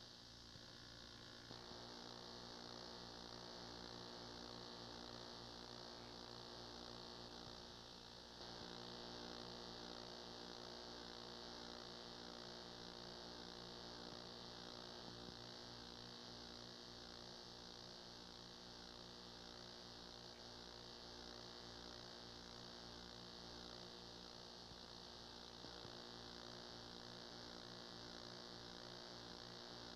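Near silence: a low, steady electrical mains hum with tape hiss, and no game sound.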